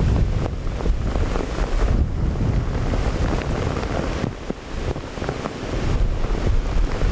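Strong storm wind buffeting the microphone with a heavy rumble, over the hiss of heavy rain. The gusts ease briefly about four and a half seconds in.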